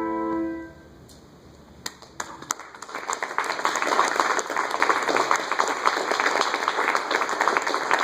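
A handbell choir's final chord rings out and dies away, and after a brief hush an audience breaks into applause: a few scattered claps about two seconds in, then full applause that builds and keeps going.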